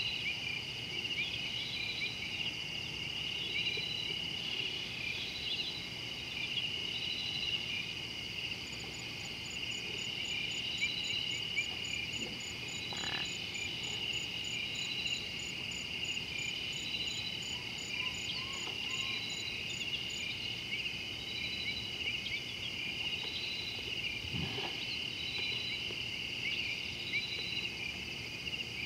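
Steady dusk chorus of insects trilling, with a higher call pulsing every second or so and a fast, high ticking series for about ten seconds in the middle.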